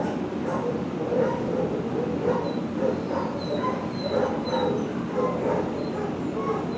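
Many dogs barking in a shelter kennel, a steady din of overlapping barks, two or three a second, with no pause.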